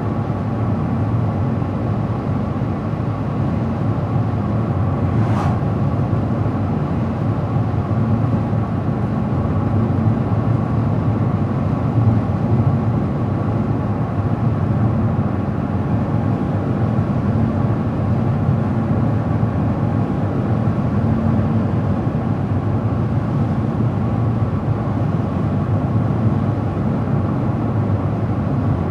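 Car driving at a steady speed on the road: an even low rumble of tyre and engine noise that holds constant, with a faint click about five seconds in.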